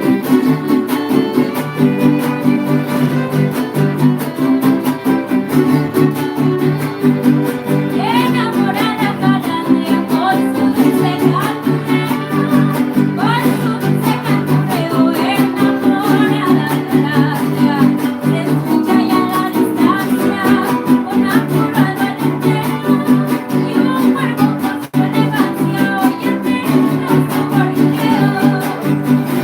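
Son huasteco trio playing a huapango: violin over the steady strummed chords of the jarana huasteca and huapanguera. From about eight seconds in, the violin plays quick sliding high notes.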